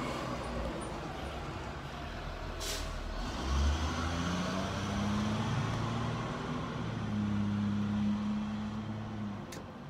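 A heavy road vehicle's engine running close by, its drone rising in pitch about halfway through and fading near the end, with a short hiss about a quarter of the way in.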